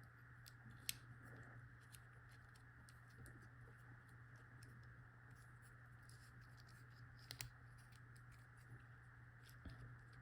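Near silence with a few faint, short clicks of a key being worked in an Abloy padlock to test it.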